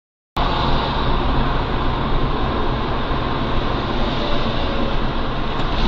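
Steady road and engine noise of a car driving, as picked up by a dashcam inside the cabin, starting abruptly about a third of a second in.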